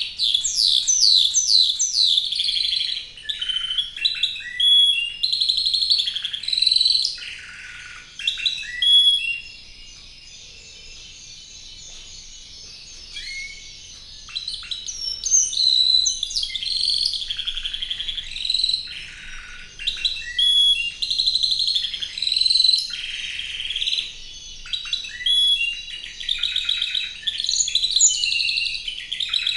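Spanish Timbrado canary singing: long phrases of rapid trills and rolled, repeated notes. It breaks off for a few seconds about ten seconds in, then sings on.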